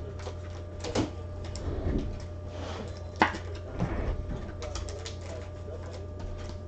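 Trading card packs and cards being handled: a few sharp clicks and light rustling over a steady low hum.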